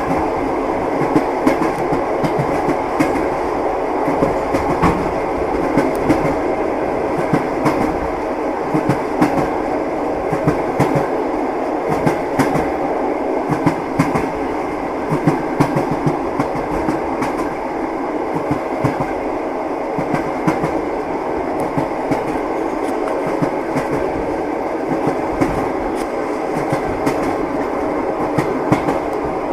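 Train wheels clacking over rail joints above a steady running rumble, the knocks coming often and unevenly.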